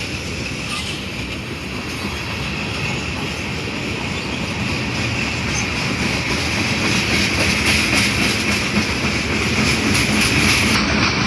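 Train rolling past on the rails: a steady rumble with clickety-clack of the wheels and a high rail ring, growing louder about halfway through.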